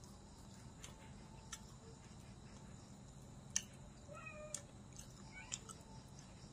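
A cat meowing faintly, one short call about four seconds in and a briefer one a second or so later, among a few sharp clicks.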